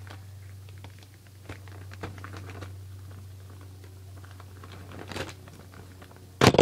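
Faint crinkling and tearing of a plastic package bag being pulled at by hand, over a steady low hum. Near the end a sudden loud knock as a flung hand hits the camera tripod and sends it clattering across the desk.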